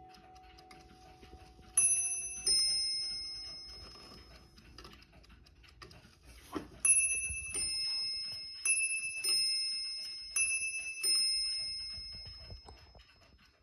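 Mauthe mantel clock's bim-bam strike on two bells: four pairs of strokes, each a higher bell then a lower one, ringing and fading away. One pair comes about two seconds in, then after a click three more pairs follow closely. The movement ticks softly underneath.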